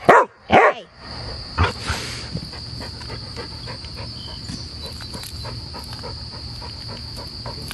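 A dog makes two short, wavering vocal sounds in the first second. Then a steady high-pitched hum sets in with scattered small clicks.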